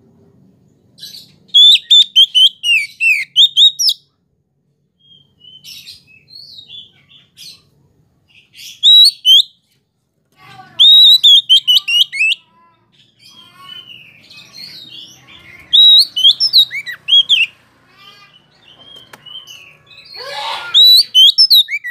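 Oriental magpie-robin (kacer poci) singing: about five loud phrases of rapid, high, sharply gliding whistled notes with short quiet gaps between them, and a harsher, lower note near the end.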